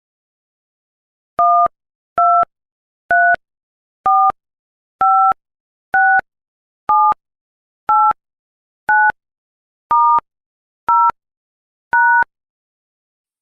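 Touch-tone telephone keypad dialling: twelve short two-tone beeps at an even pace, about one a second. The tone pairs step through the keypad in order, 1 to 9, then *, 0, #.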